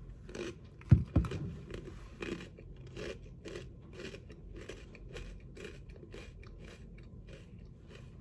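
Crunching of dry Froot Loops cereal being chewed close to the microphone: two sharp crunches about a second in, then steady chewing about twice a second, growing gradually softer.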